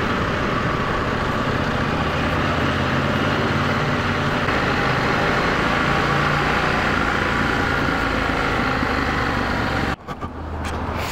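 Parallel-twin adventure motorcycle running steadily at riding speed, with wind noise over it. The sound drops sharply near the end.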